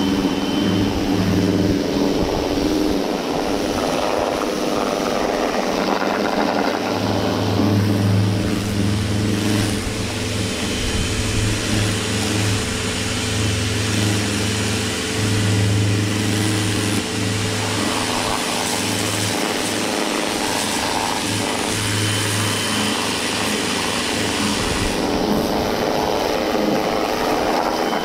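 Pressure washer running, spraying alloy wheels and tyres to rinse off wheel cleaner: a steady hiss of the water jet over the low hum of the pump motor. The hum swells and drops several times.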